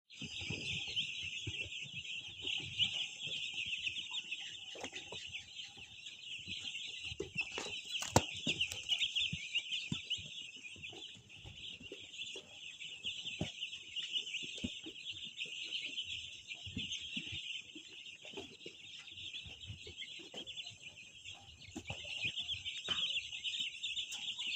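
A flock of chickens calling together, a dense steady chatter of many birds, with scattered short knocks and taps.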